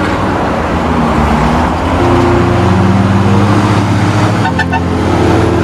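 Vehicle engine with a straight-through exhaust (no muffler) running loud, its pitch stepping about two seconds in and again after four seconds. A short higher tone sounds about four and a half seconds in.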